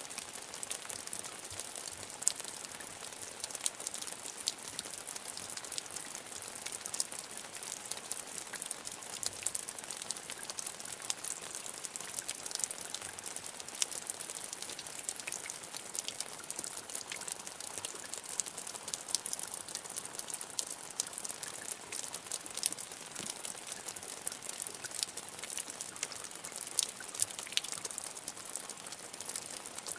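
Steady rain: an even high hiss with many sharp separate drop ticks scattered through it.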